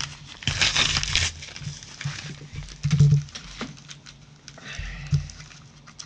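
Padded bubble mailers being handled on a wooden desk: paper and plastic rustling and sliding in the first second or so, with small taps and two dull thumps as a mailer is set down.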